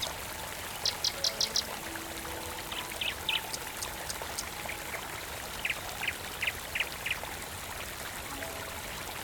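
Steady rush of running stream water, with a bird calling several times in quick runs of four or five short, high chirps.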